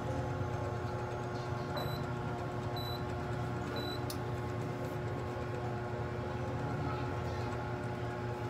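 Steady low mechanical hum with a faint whine running through it, and three short high beeps about two to four seconds in.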